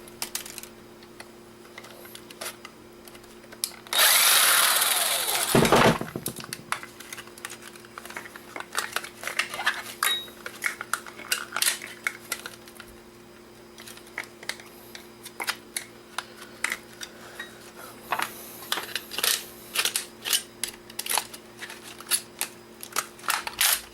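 A small electric screwdriver runs for about two seconds, backing out one of the camcorder's many tiny screws. After it come many light clicks and taps as small screws and plastic casing parts are handled.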